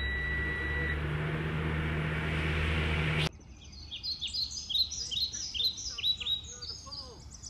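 A Freightliner-chassis UPS delivery van's engine idling, heard from the cab, with a steady high electronic warning tone from the dashboard that stops about a second in. Just past three seconds the engine sound cuts off abruptly and gives way to birdsong: a songbird repeating short, downward-slurred chirps, about two or three a second.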